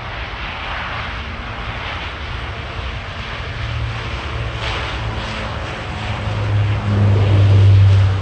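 Twin turboprop engines of a Flybe Dash 8 airliner running, with a steady low hum that builds to its loudest near the end.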